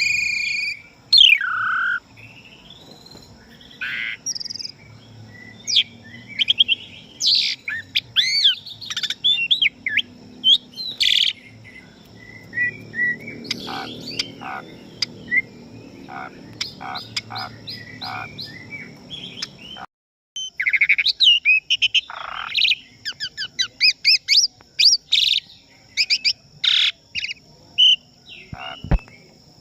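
Asian pied starling (jalak suren) singing a varied, loud song of whistles, sweeping notes, rapid chattering trills and clicks, over a thin steady high tone. A low rush of flowing river water sits under the first two-thirds and stops at a brief break about 20 seconds in.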